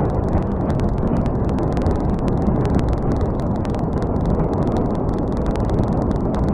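Multiple rocket launcher firing a salvo: rockets leaving one after another in a continuous rushing roar, peppered with rapid sharp cracks.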